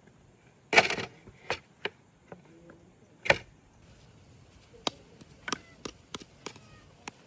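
A series of about ten sharp, irregular knocks, like chopping on wood. The loudest comes about a second in, another at about three seconds, and smaller ones follow more quickly toward the end.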